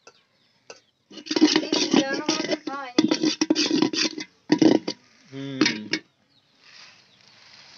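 People talking in short bursts, too unclear for the recogniser to catch. Near the end comes a faint, soft hiss as puffed rice starts to pour from a plastic tub into a pot of hot date-palm jaggery.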